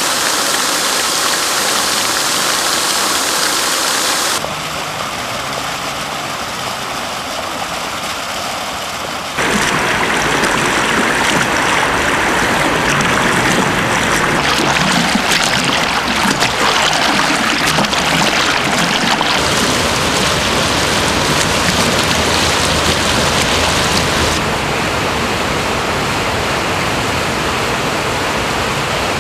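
Fountain water splashing and falling into basins, a steady rushing noise. It changes abruptly three times, about 4, 9 and 24 seconds in, and is loudest and fullest between about 9 and 24 seconds.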